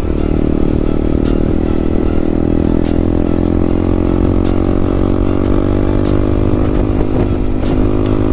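Yamaha MT15's 155 cc single-cylinder engine, fitted with a loud aftermarket exhaust, running hard at steady high revs while riding, its pitch creeping up slightly.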